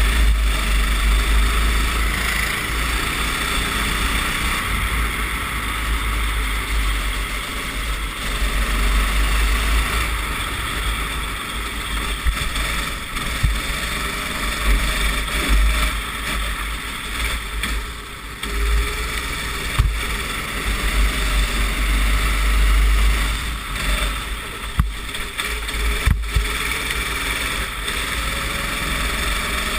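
Racing kart engine running hard and varying with the throttle, recorded by an onboard camera, with heavy wind rumble on the microphone.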